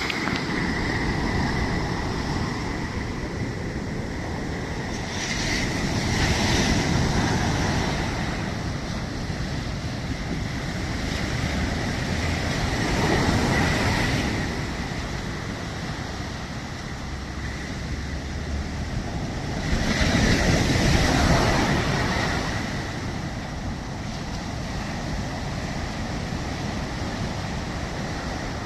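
Sea waves breaking and washing in, the surf noise swelling and easing, with three louder surges about seven seconds apart.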